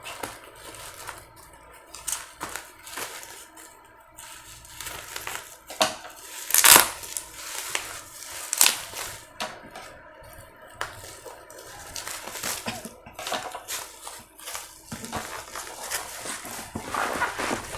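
Bubble wrap packaging being pulled off and handled, crinkling and crackling irregularly, with a couple of sharper, louder crackles about seven and nine seconds in.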